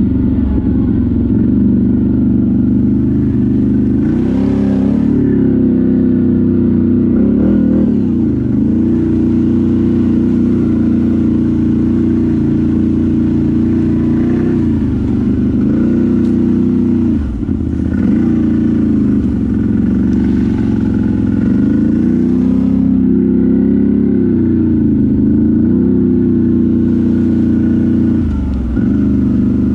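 ATV engine running under way, its revs dropping briefly and picking up again several times as the throttle is let off and reopened.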